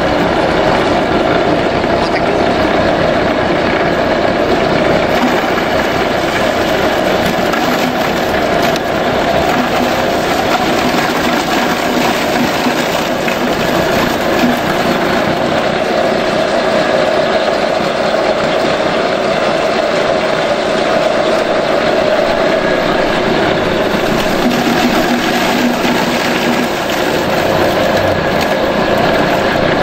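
AGR-CH250 multi-purpose grass chopper (pencacah rumput) running steadily, with a loud, even mechanical drone from its engine and spinning cutter.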